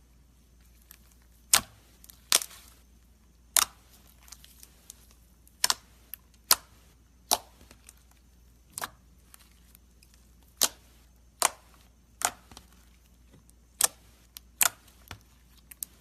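Slime being squeezed and pressed, giving sharp clicking pops as air pockets burst, around fifteen at irregular intervals about a second apart.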